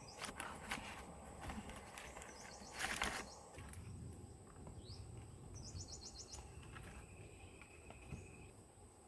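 Rustling and light knocks of dry sticks and vine being handled while lashing a raft together, with a louder rustle about three seconds in. A bird chirps in short quick trills in the background.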